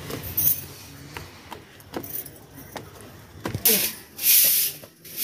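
Short hand broom of stiff grass sweeping a bare floor: light scrapes and clicks at first, then two loud swishing strokes near the end.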